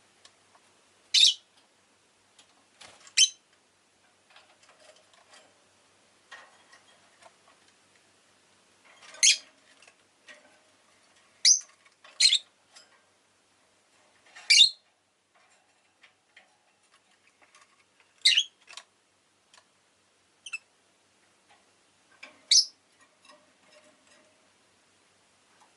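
Rosy-faced lovebird (Agapornis roseicollis) giving short, sharp, high-pitched chirps, about nine single calls spaced irregularly a second or several seconds apart.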